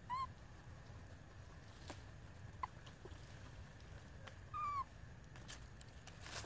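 Baby long-tailed macaque giving two short, high whimpering coo calls about four seconds apart, the first rising and the second falling slightly, with a faint squeak between them: infant crying calls of the kind used to beg for food.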